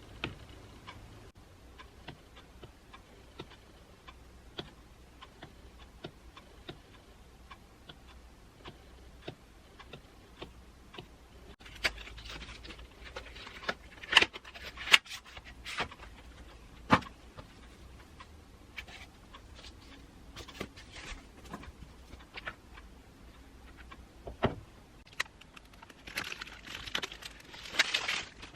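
Small clicks and taps of objects being handled, with a few sharper clicks around the middle and one later, and a brief rustle near the end.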